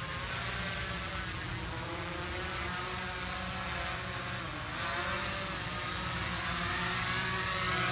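Traxxas Aton quadcopter's motors and propellers whirring in flight. The pitch dips briefly near the middle and recovers, then climbs toward the end as the throttle is pushed.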